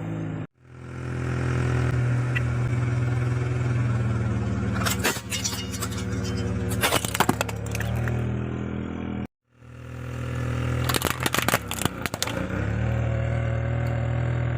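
Car engine running at a low, steady hum while the tyre rolls over and crushes objects, giving clusters of sharp cracks and crunches about five seconds in, about seven seconds in, and again about eleven seconds in. The sound cuts out abruptly twice.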